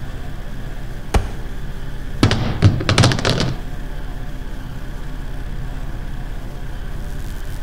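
A single sharp knock, then about a second later a quick flurry of several knocks and thuds, over a steady low pulsing drone.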